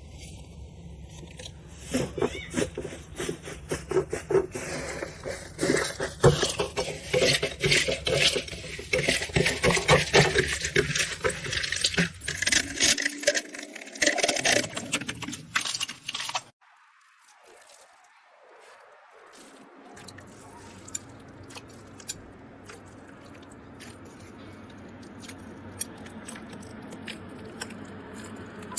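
Dense, crisp crackling and clicking from something being handled, broken up or crunched close to the microphone. It stops abruptly after about fifteen seconds, leaving a quieter stretch with scattered faint clicks.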